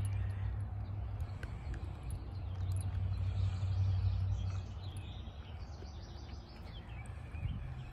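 Steady low rumble, strongest in the first half and fading about halfway through, with faint bird chirps near the end. Under it, a few soft clicks from a dog chewing a rawhide chew.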